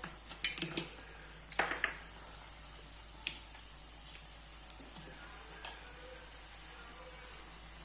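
Metal utensil clinks and taps against a cooking pan, several in quick succession in the first two seconds, then single lighter clinks, over a faint steady sizzle of onions and tomatoes frying in oil.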